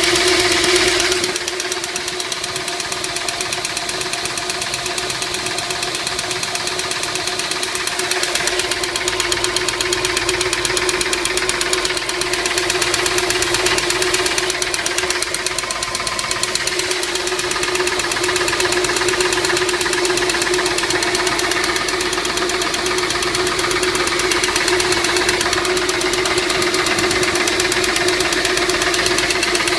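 A Ford Fairlane's engine idling with a rapid, even ticking from the valvetrain just after the lifters were replaced. The noise later went away.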